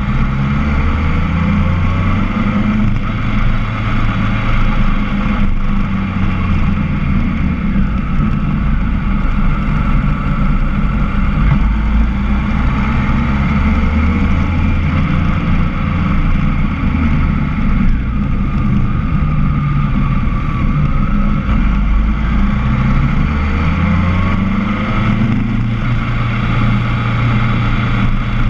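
Motorcycle engine running while riding, heard from the bike, with wind noise on the microphone; the engine pitch rises briefly several times with the throttle.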